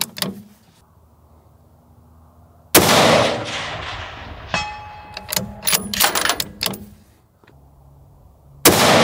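A 6.5 Creedmoor bolt-action hunting rifle with a muzzle brake fires a shot about three seconds in, the report ringing out and fading over about a second. The bolt is then worked with a series of sharp metallic clicks, and a second shot goes off near the end.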